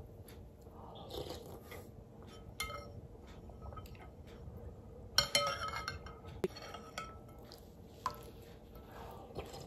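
A metal spoon clinks and scrapes against a glass bowl as it scoops a soft papaya and coconut purée. There are a few separate clinks, and the loudest is a quick cluster of ringing clinks about five seconds in.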